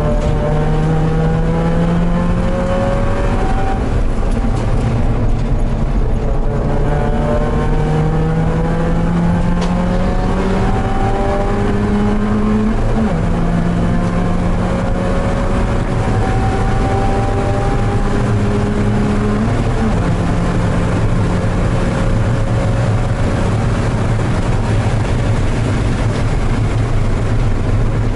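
Porsche 968's 3.0-litre four-cylinder engine heard from inside the race car's cabin at full throttle. Its note climbs slowly through each gear and drops sharply at upshifts about 13 and 20 seconds in, over a steady rush of noise.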